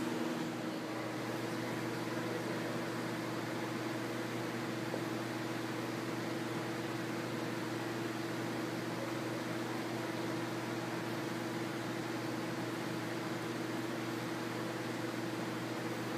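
Steady mechanical hum, two constant low tones, over an even hiss.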